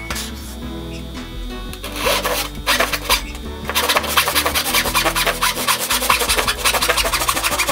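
Fine-toothed handsaw cutting a wooden block by hand, with rapid rasping strokes starting about two seconds in. Background music plays throughout.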